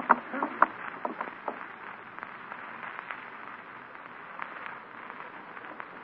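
A few sharp knocks fading out over the first second and a half, then only the steady hiss and crackle of an old radio transcription recording.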